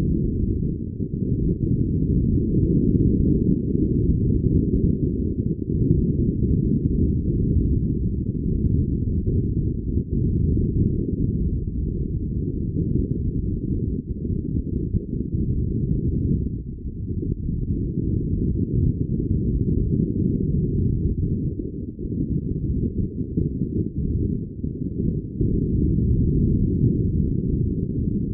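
Wind buffeting the microphone on a sailing yacht under way: a loud, muffled low rumble that swells and dips, with nothing higher-pitched above it.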